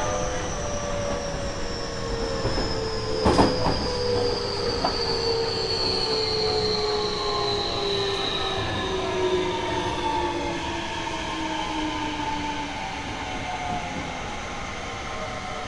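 Seibu 30000 series train's Hitachi two-level IGBT VVVF inverter and traction motors whining as the train slows on its approach to a station, several tones falling steadily in pitch over wheel and rail rumble, heard from inside the motor car. A single sharp knock about three seconds in.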